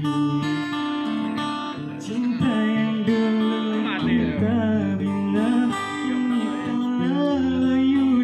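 Live acoustic guitars strummed and picked, amplified through PA speakers, with a man's singing voice coming in over them about two seconds in.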